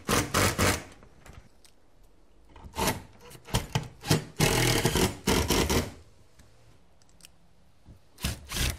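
Cordless driver running a lag screw through a steel hinge into the end of a garage door panel, in start-stop bursts with a longer run in the middle. The screw is drawing the panel tight into place.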